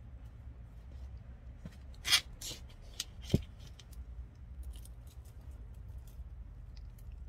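Gloved hands handling the leafy vine of a Dioscorea elephantipes on its wire support: faint rustling and ticking, with a few sharp clicks or snaps between about two and three and a half seconds in, over a steady low hum.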